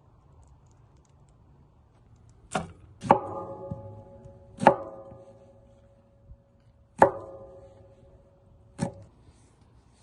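Five sharp knocks, irregularly spaced a second or two apart, each leaving a short ringing tone, as of something hard striking a metal cooking vessel or utensil.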